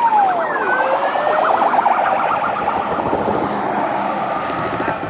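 Police car sirens sounding together. One wails in long falling and rising sweeps while another yelps in a fast, rapid warble.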